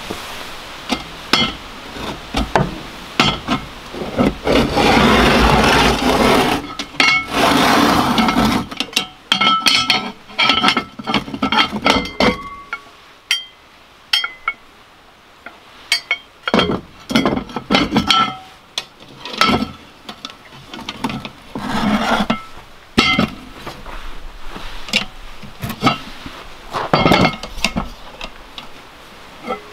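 A long iron hook scraping around inside a clay earthen oven, with a long scrape about four to nine seconds in. It is followed by many sharp knocks and clinks of metal on a cast iron Dutch oven and its lid as the pot is hooked out and set down on a wooden round.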